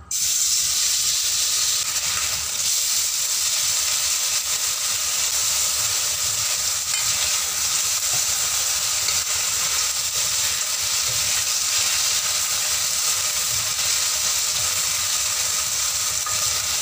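Marinated beef slices sizzling in hot oil in a stainless steel wok, the steady hiss starting abruptly as the meat goes in, stirred with a spatula.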